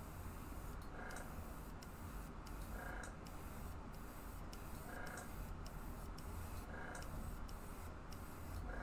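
Airbrush compressor running: a steady low hum with an even hiss of air, and a faint short chirp about every two seconds.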